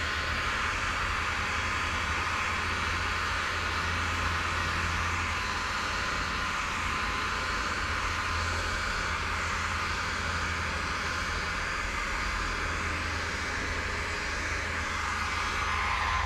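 Steinel HL 2020 E heat gun running steadily, its blower giving a constant rushing air noise with a low hum beneath.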